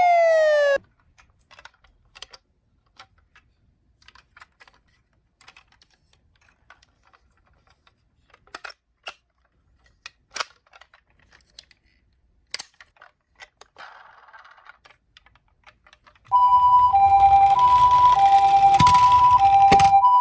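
A toy emergency vehicle's electronic siren glides down in pitch and cuts off, followed by scattered light clicks and taps. About three-quarters of the way through, a toy ambulance's electronic two-tone 'pee-po' siren starts, alternating steadily between a high and a low note in the manner of a Japanese ambulance.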